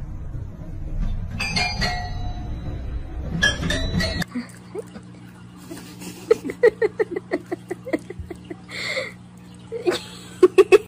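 Cat pressing the keys of a small electric keyboard: two clusters of piano notes about two seconds apart, over a low rumble. Then a quick run of wet lapping smacks, about five a second, from a pet eating out of a small food tin, with a few louder smacks near the end.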